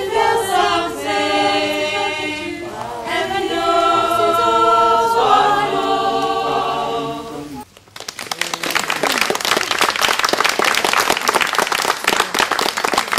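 Several voices singing together a cappella, ending about seven and a half seconds in; after a brief gap, a crowd applauding.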